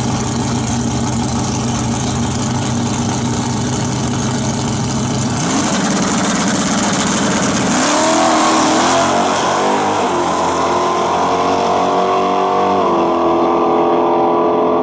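Buick drag car's V8 idling at the starting line, revving up about five and a half seconds in, then launching hard near eight seconds in and pulling away down the drag strip. The engine pitch climbs and drops in steps at the gear changes, with the last shift near the end.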